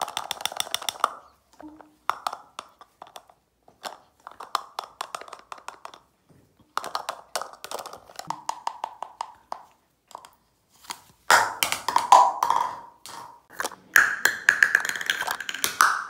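Young sulphur-crested cockatoo making rapid clicking, raspy chatter in repeated bursts, mixed with taps of plastic stacking cups against its beak; loudest in the last few seconds.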